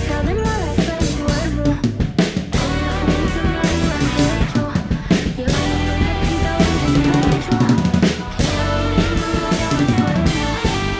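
Drum kit played along to a recorded band track, with kick drum, snare and rimshot hits coming thick and fast over the bass and melody of an instrumental passage.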